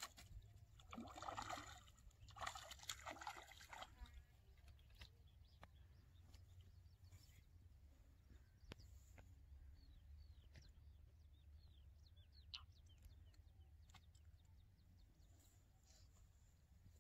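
Hooked piranha splashing and thrashing at the water's surface as it is reeled in: two bursts of splashing in the first few seconds. After that, near silence with faint clicks and a steady low rumble.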